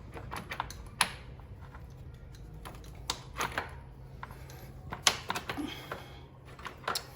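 Scattered light clicks and knocks of metal parts being handled as a motorcycle's front sprocket is fitted back onto its shaft, the sharpest about a second in and about five seconds in.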